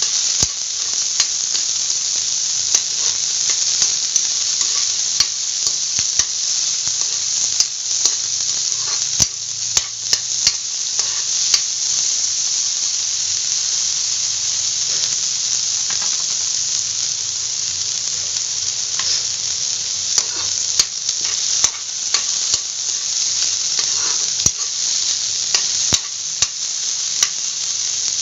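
Chopped garlic and onion sizzling in hot oil in a wok while being stirred. A metal spatula scrapes and clicks against the pan every second or so.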